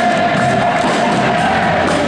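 Loud music with one long held note, playing over a cheering basketball-arena crowd.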